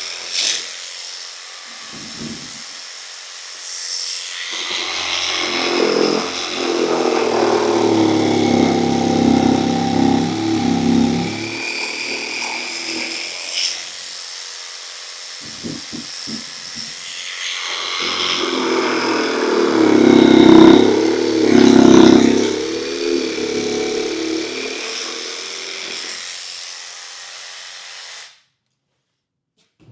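Electric jigsaw running and cutting in two long passes, each about eight seconds, with a short break between them.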